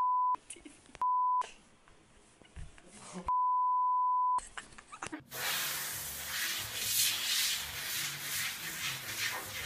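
Censor bleeps: a pure 1 kHz beep tone three times, two short and one about a second long, with the audio muted around them. From about five seconds in, a steady rough noise.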